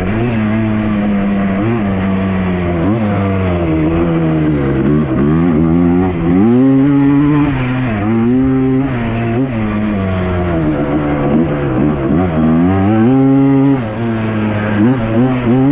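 Yamaha Blaster quad's single-cylinder two-stroke engine running under throttle. Its note holds steady at first, then rises and falls repeatedly as the throttle is opened and closed.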